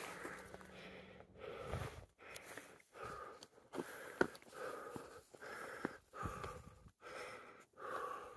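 A hiker's heavy, rhythmic panting close to the microphone, a breath about every second or less, from the exertion of climbing a steep mountain path. Short clicks of footsteps on the trail sound between the breaths.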